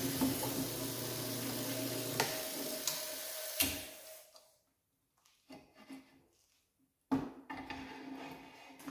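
Floor drill press running with a steady hum and whir, with a few sharp clicks, then switched off about three and a half seconds in and spinning down to quiet. Near the end a sharp knock and light metal clatter come from handling the steel plates clamped with locking pliers.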